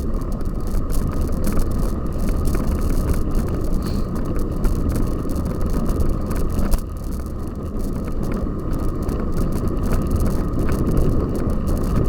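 Cyclocross bicycle being ridden over rough ground: steady rushing noise with frequent small rattles and knocks from the bike.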